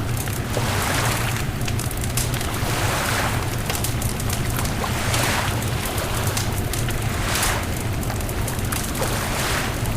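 Beach bonfire crackling with scattered small pops, over a steady low rumble and a hissing wash of surf that swells about every two seconds.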